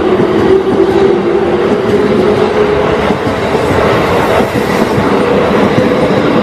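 Keikyu electric train running past at a level crossing, loud and continuous, with wheels clacking over the rails and a steady tone slowly rising in pitch throughout.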